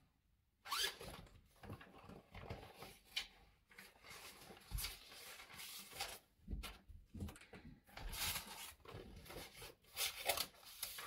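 Sheets of paper rustling and scraping in irregular short bursts as scraps are handled and sorted through in search of a piece of thin paper.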